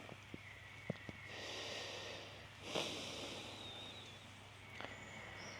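A man breathing deeply and slowly through the nose while holding a stretch: two long, soft breaths, the second starting with a sharper puff. A few faint ticks come in the first second.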